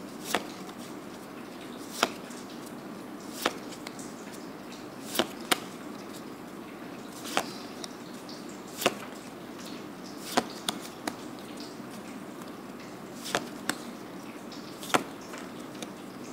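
Trading cards being flipped through by hand, each card snapping or tapping against the stack as it is moved to the back: a short sharp click every second or two, a few in quick pairs.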